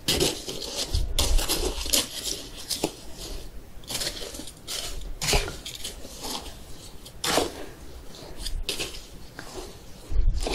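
Chopsticks stirring through slushy shaved ice in a bowl of cold soy-milk noodle soup, kongguksu, with a series of irregular clicks and scrapes against the bowl.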